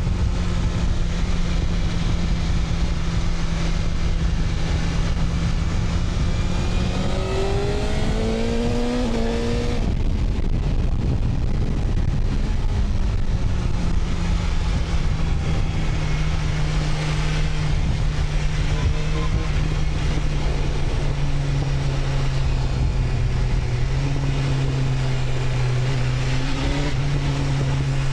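BMW S1000RR inline-four engine running under way: steady at first, then revving up with rising pitch about seven seconds in, easing off near ten seconds, and running steadily again with small changes in revs. Wind rumbles on the microphone throughout.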